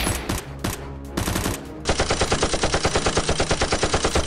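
Gunfire sound effects: a few single shots, then from about two seconds in a long burst of rapid automatic fire, around ten shots a second.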